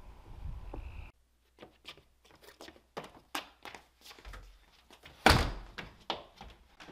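A steady high-pitched night chorus of frogs and insects, cut off abruptly about a second in. Then a scatter of knocks and clicks and one loud thump about five seconds in: a door being pushed shut.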